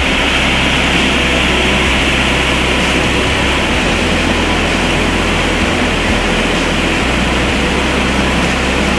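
Whitewater rapids rushing over granite at the brink of a waterfall: a loud, steady rush of water without a break.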